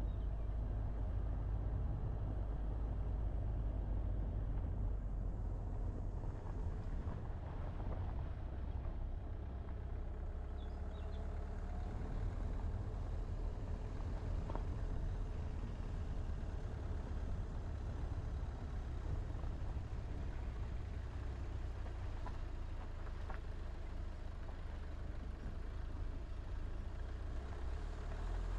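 Car driving at a steady pace on a country road: a continuous low rumble of tyres and engine.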